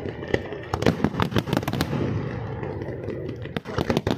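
Fireworks display with many aerial shells bursting together, giving a dense, irregular run of sharp bangs and pops.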